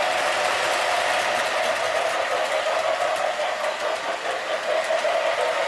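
O-gauge toy steam locomotive running on three-rail O-27 track, a steady motor hum with wheel and rail noise.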